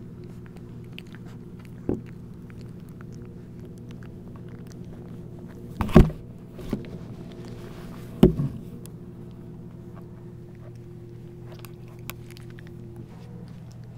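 Handling noise at the camera's microphone as it is pressed up against the puppies: several knocks and rubbing, the two loudest about six and eight seconds in, over a steady low hum.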